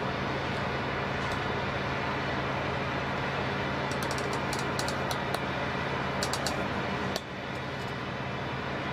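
Steady engine-like rumble with a low hum, and a few faint sharp cracks about four seconds in and again a little after six seconds.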